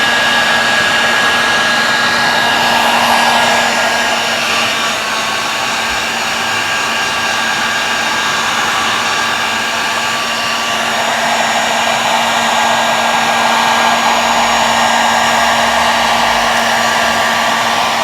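Heat gun blowing steadily, its fan motor whining under the rush of hot air, shrinking heat-shrink tubing around a mountain bike's cables.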